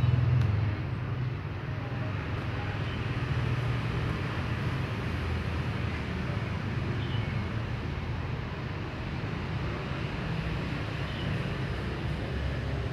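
Steady low rumble with an even hiss over it: outdoor background noise.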